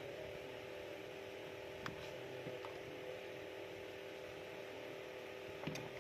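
A steady hum with a few light clicks: one about two seconds in, a fainter one soon after, and a sharper one near the end.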